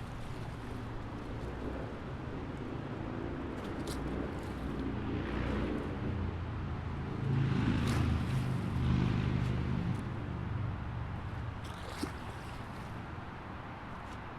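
Highway traffic running steadily as a low rumble, with a louder swell of passing vehicles about seven to nine seconds in and a few brief high hissing sounds.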